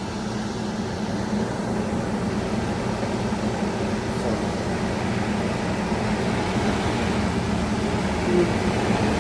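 2011 Ducane heat pump outdoor unit running while frozen over with ice: a steady fan blowing with a constant low hum, the compressor barely heard.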